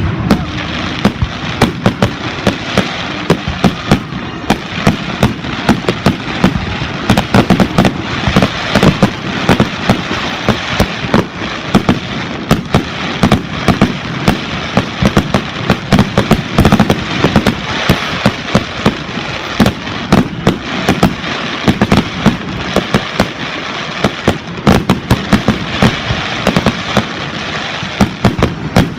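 Aerial fireworks going off in a dense, continuous barrage: loud bangs several times a second over a steady crackle.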